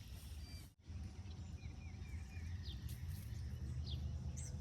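Outdoor ambience by the water: a bird gives a few short, high chirps, some sliding down in pitch, over a steady low hum. The sound drops out briefly just under a second in.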